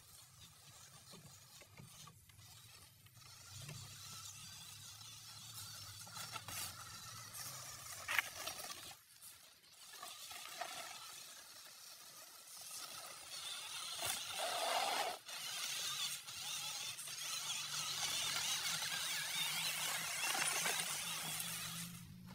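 Small toy RC off-road car running through grass: its little electric motor and gears whirring and its tyres brushing the grass, getting louder about halfway through as the car comes close.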